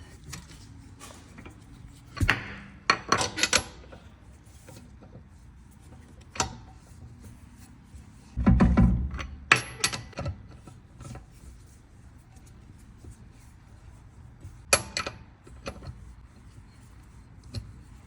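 Scattered metallic clanks and knocks of a car's road wheel being handled and refitted onto the hub, with one heavy, deep thump about eight and a half seconds in.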